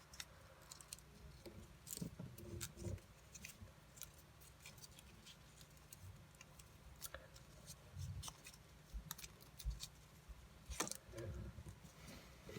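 Faint handling of a folded sheet of paper: scattered soft crinkles and small clicks as the paper is pressed and creased by hand.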